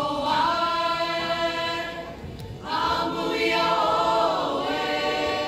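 Group of voices singing a Samoan song together, unaccompanied, in two long held phrases with a short break about two seconds in.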